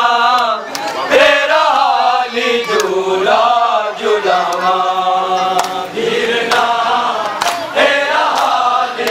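Many men's voices chanting a Muharram mourning lament together in long, sung phrases, with a few sharp slaps now and then.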